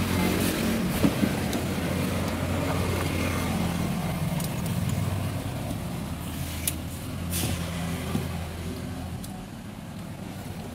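A motor vehicle engine idling steadily, a low hum that weakens near the end, with a few sharp clicks about seven seconds in.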